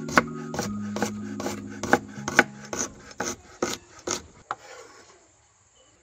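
Large kitchen knife slicing a red onion on a wooden cutting board: a steady run of crisp knife strokes onto the board, about two or three a second, stopping about four and a half seconds in. Soft background music fades out under the first half.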